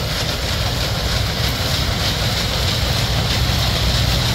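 John Deere CH570 sugarcane harvester working through standing cane, its diesel engine and cutting gear running at a steady low rumble under an even hiss, with the tractor that pulls the cane wagon alongside running with it.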